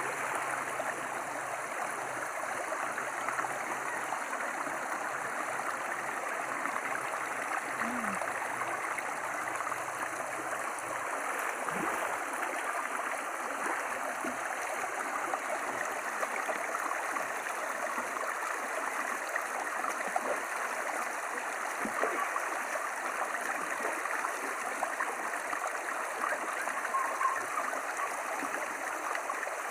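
Shallow stream running over stones and boulders: a steady, even rush of water.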